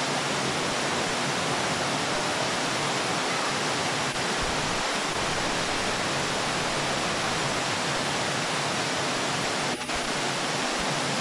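Floodwater pouring down a flight of stone steps in a steady, unbroken rush of churning water.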